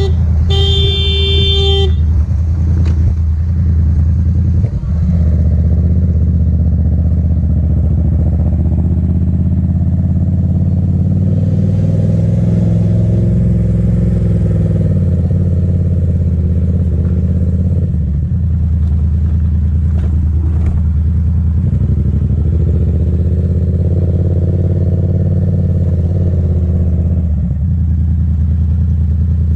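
Motorcycle engine running steadily at low speed under the rider. Right at the start a horn sounds twice, a short beep and then a longer blast of about a second and a half, as a warning to a car turning across the motorcycle's path.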